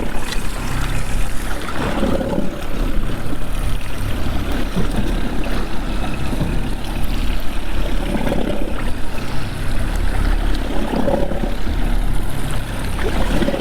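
Boat engine idling low and steady, with water sloshing and gurgling against the hull.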